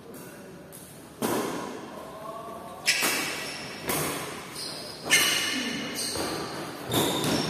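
Badminton rally: a shuttlecock struck back and forth by racquets, five sharp hits about one to two seconds apart, each ringing on in a large hall.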